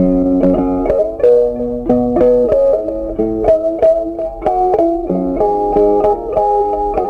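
Background instrumental music: a melody of plucked string notes over sustained chords.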